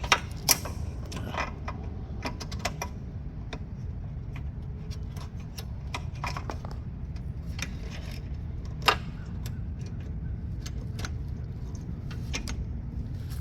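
Scattered light metallic clicks and clinks as the spring and cable end of a self-propelled mower's traction cable are handled and hooked on, a couple of sharper clicks near the start and one about nine seconds in, over a steady low hum.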